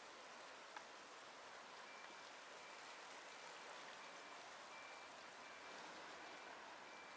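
Faint steady rush of water flowing in a small concrete-lined stream channel. From about two seconds in, a faint high beep repeats roughly every half second or so.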